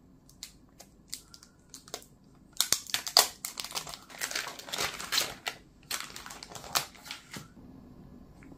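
Plastic packaging film crinkling loudly as it is handled and pulled off a new phone, after a few light clicks and taps. The crinkling starts about two and a half seconds in and dies down shortly before the end.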